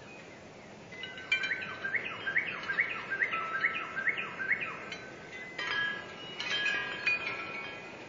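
Wind chimes ringing in a breeze, with a finch singing a quick phrase of sliding notes over and over for a few seconds, the loudest sound. All of it is played at half speed, so the chimes and song are lower and slower than natural.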